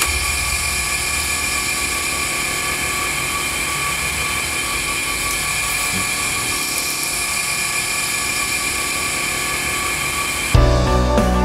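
Industrial tarpaulin-washing machine running as a tent cover feeds through it: a steady mechanical noise with a high, steady whine. Music with a heavy beat cuts in near the end.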